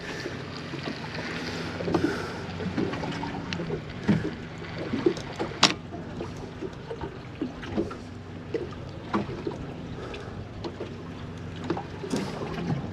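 Small fishing boat sitting on the open sea: water slapping against the hull with scattered short knocks and clicks over a steady low hum.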